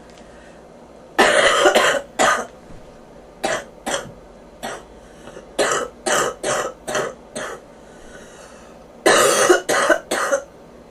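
A person with bronchitis coughing in fits. There is a long bout of coughs about a second in, then a string of single shorter coughs, and another hard bout near the end.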